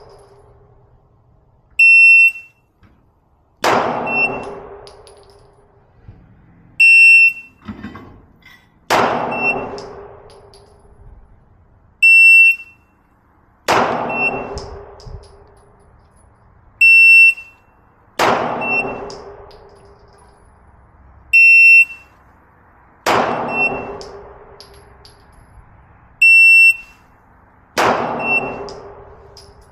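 Shot timer start beep, a short high tone, then a single 9mm pistol shot from a Glock 19X about two seconds later, each shot ringing off. The beep-then-shot pair repeats six times, about every five seconds.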